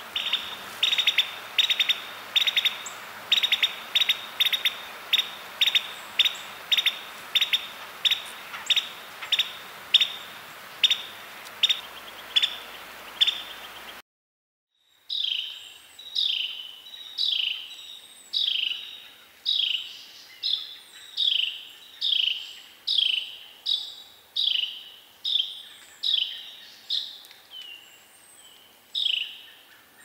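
Songbird calls in two runs: first a string of sharp, short chip notes about one and a half a second, then, after a brief silence, a Carolina wren giving a series of downward-slurred call notes about one a second.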